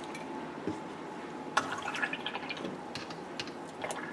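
Paintbrush rinsed in water and acrylic paint bottles handled: a short wet swishing with a run of small clicks about a second and a half in, and a few more clicks near the end.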